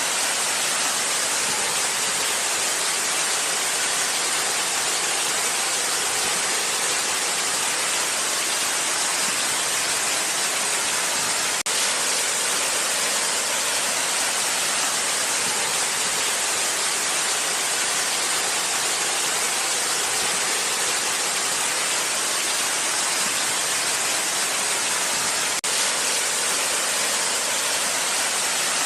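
Waterfall: a steady, even rush of falling water, bright and hissy, with two very brief dropouts about twelve and twenty-six seconds in.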